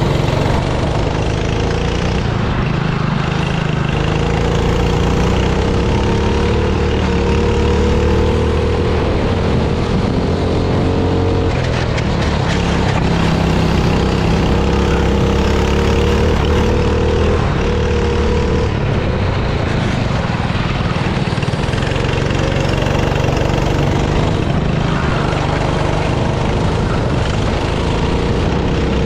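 Four-stroke F400 kart engine running hard under onboard racing, its pitch climbing along the straights and dropping sharply twice as the throttle is lifted for corners. Behind it, a steady hiss of wind and of wet tyres on a soaked track.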